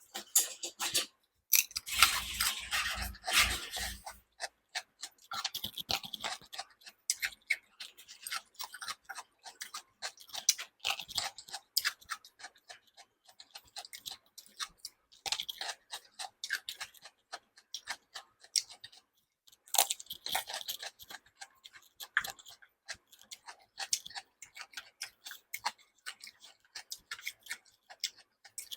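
Close-miked chewing and mouth sounds of a person eating: a steady run of wet clicks and smacks, with a louder, fuller stretch about two seconds in.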